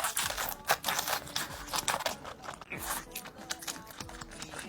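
Close-up eating sounds: crisp food bitten and chewed, a quick run of crunches.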